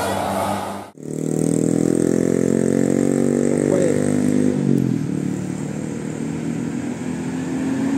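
A vehicle engine accelerating, its pitch climbing steadily, then dropping about four and a half seconds in and settling into a lower, rougher running sound. The sound breaks off sharply about a second in, just before the engine starts climbing.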